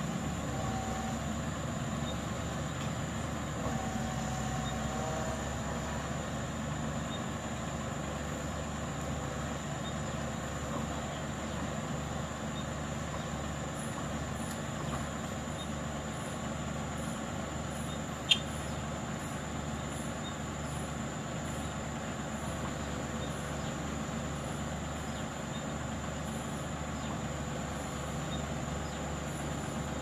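Diesel engine of heavy earthmoving machinery running steadily, with a single sharp click about halfway through.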